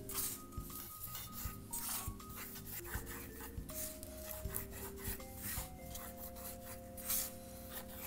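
Hands pressing and smoothing parchment-paper circles into greased aluminium cake pans, a run of short rubbing and rustling scrapes, over soft background music.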